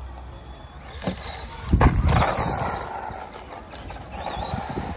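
Electric RC car driving fast on tarmac: tyre hiss and a faint high motor whine. A sharp knock just under two seconds in is the loudest sound.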